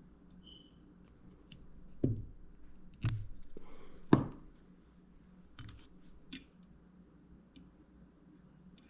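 Small hand tools handled at a workbench during drone wiring: scattered light clicks, with three louder knocks about two, three and four seconds in, the middle one followed by a brief rustle.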